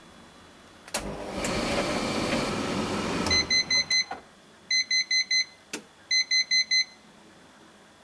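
Siemens tumble dryer starting with a click and running for about two seconds, then stopping and beeping three times in quick sets of four high beeps. This is the 'beeps and stops' fault, where the dryer indicates that its water container is full; the owner puts it down to congealed mess holding up the drain float.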